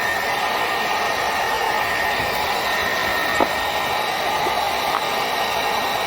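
Electric heat gun blowing steadily with a faint steady whine, warming the plastic wheel-arch liner to soften it for reshaping.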